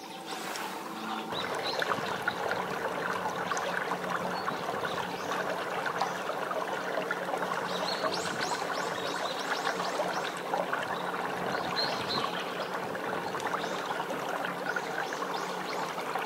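Water rushing and trickling along the bow of a small boat under way, over a steady low motor hum.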